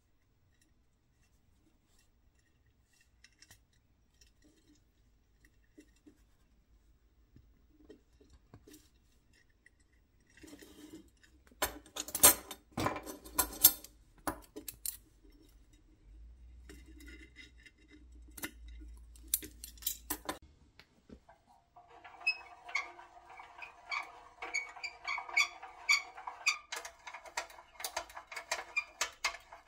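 Small metal clicks and clinks from a toy dragline's pressed-steel bucket and its light chain being handled and rigged. A cluster of sharper, louder clicks comes about halfway through. Near the end there is a dense run of fast ticking and rattling.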